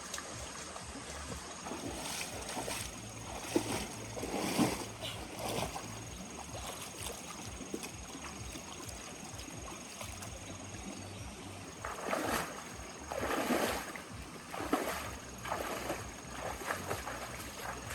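Water splashing in a series of short swishes, one group a few seconds in and another near the end, over a steady faint hiss.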